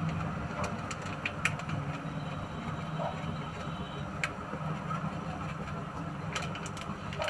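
Onion and ginger-garlic masala frying in oil in an iron kadai, with faint scattered crackles, over a steady low hum.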